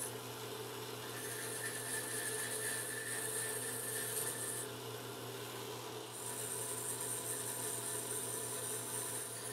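A drill press runs at high speed with a steady motor hum while coarse hand rasps scrape into a spinning wooden knob blank, shaping its neck under the mushroom head. The rasping lets up for about a second and a half midway, then resumes.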